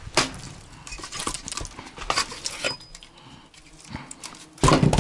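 Irregular clatter of short clicks and knocks, with a heavier, louder thump just before the end.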